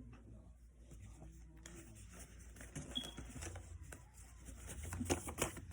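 Faint rustling and light clicking from small objects being handled, with a quick run of louder clicks about five seconds in.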